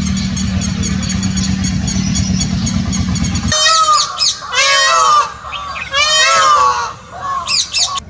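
A steady low hum with faint regular ticking, then, about halfway through, Indian peafowl calling: four loud honking calls that rise and fall in pitch, the last one shorter.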